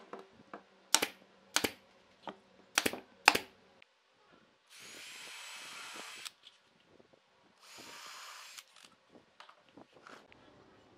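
About five sharp shots in the first few seconds from a nail gun fastening the pine frame, then a cordless drill driving screws into the corner joint in two runs, the first about a second and a half long and louder, the second about a second.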